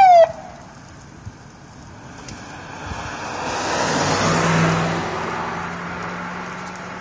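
The tail of a short siren whoop, falling in pitch, cuts off just after the start. Then a car passes close by on the road: its tyre and engine noise rises to a peak about four and a half seconds in and fades, leaving a steady engine hum.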